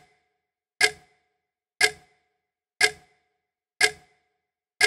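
Clock ticking sound effect: sharp single ticks about once a second, each with a brief ring, and silence between them.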